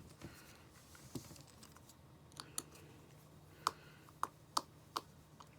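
Small metal repair tools clicking and tapping on an iPhone's screws and screen bracket: about six short, sharp clicks scattered through the second half.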